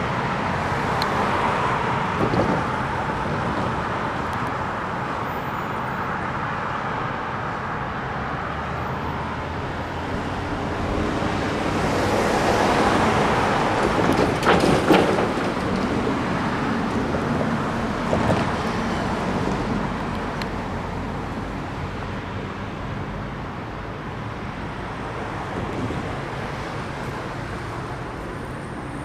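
Road traffic: motor vehicles passing on a busy street, as a steady hum that swells as cars go by, loudest about halfway through.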